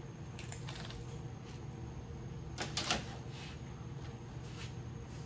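Light clicks and knocks of steel pieces being handled and positioned on a table, the loudest cluster about three seconds in, over a steady low hum.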